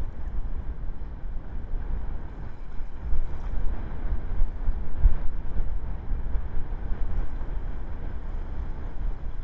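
Wind buffeting the microphone of an exposed outdoor camera: a gusty low rumble over a steady hiss.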